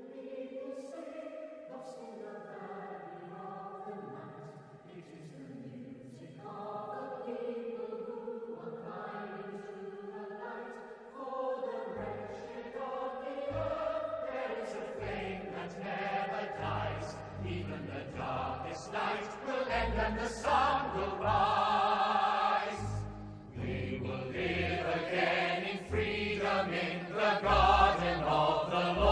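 Background music: a choir singing slow, wavering chords. About twelve seconds in, deep drum hits join and the music grows louder.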